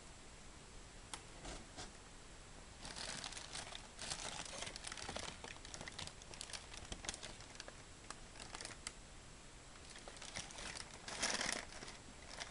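Packaging crinkling as it is handled and unwrapped, in irregular bursts of crackle, loudest near the end.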